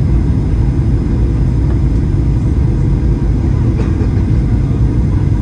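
Steady, loud low rumble in the cabin of a Boeing 737-800 airliner: engine and airflow noise heard from inside the passenger cabin.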